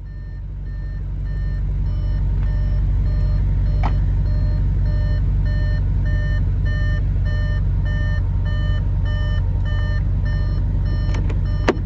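An Audi RS5's electronic warning chime beeping steadily, about two beeps a second, over a steady low rumble. A single click comes about four seconds in and another near the end.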